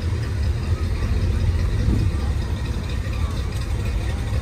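Steady low rumble with faint chatter from a beach crowd.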